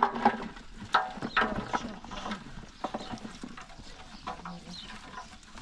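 Chopped vegetable pieces (cauliflower, carrot, red cabbage) clattering and rustling as they are pushed by hand from a basin into a metal pot, with short pitched calls about a second in.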